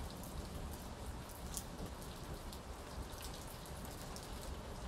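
Rain falling steadily, with scattered sharp ticks of single drops landing close by, as the shower begins to let up.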